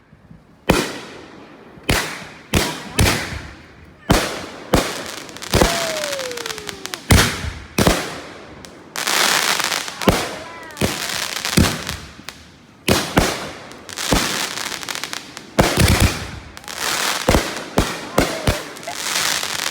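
Fireworks going off in rapid succession: sharp bangs every half second to second, each trailing away. A falling whistle comes about six seconds in, and a stretch of dense hiss about nine seconds in.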